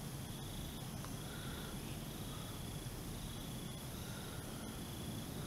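Faint steady hiss with crickets trilling on and off in the background.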